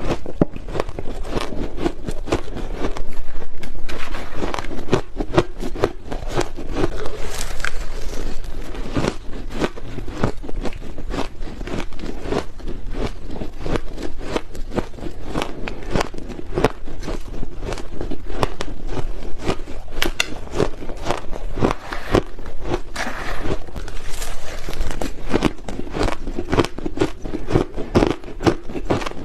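Close-miked biting and chewing of blended powder ice: a dense, continuous crunching and crackling, louder for a moment about three seconds in.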